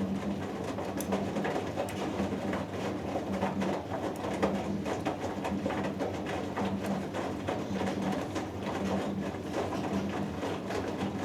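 Washing machine drum turning the load mid-wash on a 90 °C cotton cycle: a low motor hum that comes and goes in short stretches, over a steady swishing wash with many small clicks from the tumbling laundry.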